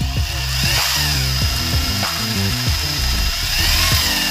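Electric drill spinning a small hydraulic pump that draws oil from a cup and returns it, a test run of the pump. The motor's whine rises and falls in speed twice, over background music.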